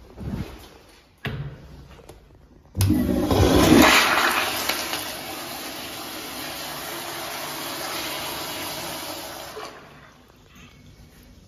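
Sloan Royal-111 flushometer valve flushing an American Standard Afwall toilet. A sudden loud rush of water starts about three seconds in, holds steady for about seven seconds, then dies away near the end.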